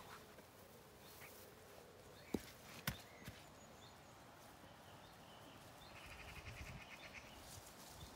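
Quiet outdoor ambience with a faint pulsing bird trill near the end. Two sharp clicks about half a second apart come a little over two seconds in.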